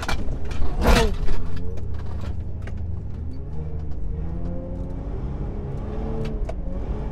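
Mitsubishi Pajero 4x4 driving over sand dunes: a deep engine and drivetrain rumble, with the engine's pitch rising and falling as the throttle changes, and light rattling clicks throughout. About a second in comes a brief, loud burst of noise.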